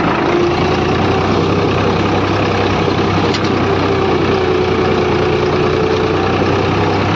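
Farm tractor's diesel engine running steadily under way, heard from the driver's seat, with a steady whine over the engine noise.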